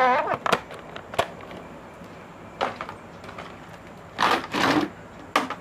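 Plastic toys knocking together as they are handled and put into a plastic basket: a few sharp clicks, then a louder rustling clatter about four seconds in.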